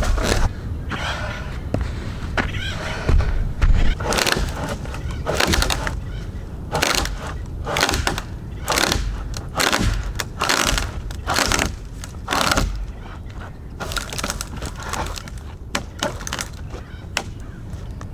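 Small hand pruning saw cutting through a thick tree trunk, rasping back-and-forth strokes about one a second, with low thumps in the first few seconds.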